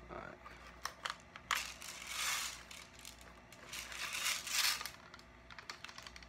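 Hard plastic parts of a battery-powered full-auto BB gun being handled as a battery pack and its wires are forced into the housing: a few sharp clicks in the first second and a half, then two longer rustling scrapes.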